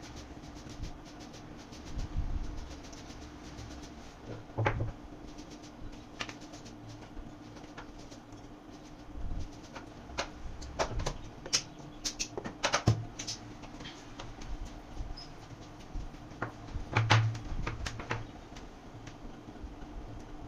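Scattered clicks and knocks over a steady low hum, thickest in the middle stretch and again a few seconds before the end.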